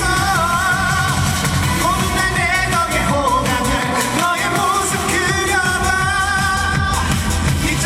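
A man singing a trot song live through a PA over band accompaniment with a steady beat, holding two long notes, one near the start and one about two-thirds of the way through.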